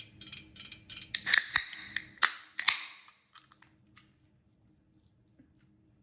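Close-up crunching of crispy food being bitten and chewed: a run of small crackles, then several sharp, loud crunches over about three seconds before it fades out.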